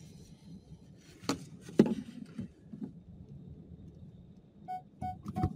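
Low rumble inside a car moving slowly in town, with two sharp knocks about half a second apart a little over a second in. Near the end come three short electronic beeps, followed by a thump.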